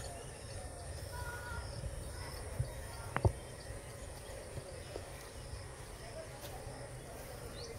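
Outdoor ambience: low wind rumble on the microphone under faint, steady high-pitched insect chirping, with a sharp click about three seconds in.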